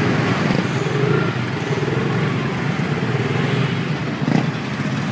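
Many mopeds and small motorcycles running together at low speed in a packed pack, a steady, dense engine noise. A brief knock sounds about four seconds in.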